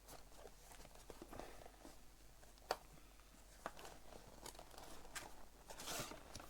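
Faint crinkling and tearing of trading card box packaging being opened by hand, with two sharp clicks in the middle and denser rustling near the end.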